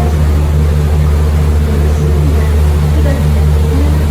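Sightseeing tour boat's engine running steadily under way, a loud low drone with a regular throb, heard from on board.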